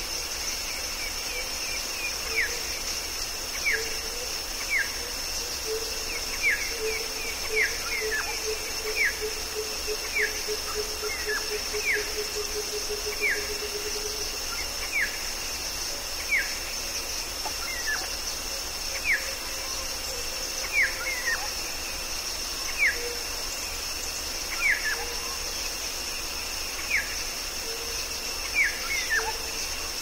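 Rainforest dawn ambience: a steady high drone of cicadas and crickets, with a bird repeating a short downward-sliding whistle every second or two. A low run of pulsed notes sounds underneath through the first half and then stops.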